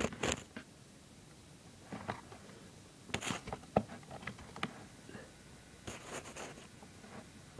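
Light handling noises: a few scattered clicks and rustles, with quiet gaps between them.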